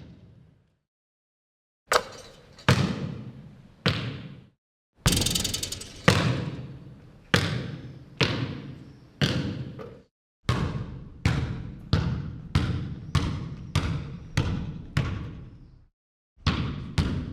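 Basketball dribbled on a hard floor: after a short silence, a few slow bounces, then a steady run of bounces a little over half a second apart, then, after a brief break, a faster run of bounces with another short gap near the end.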